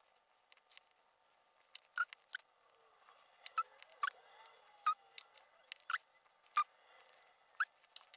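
About a dozen small, sharp metal clicks and taps from tweezers and lock pins being set into the pin chambers of a brass lock cylinder during repinning.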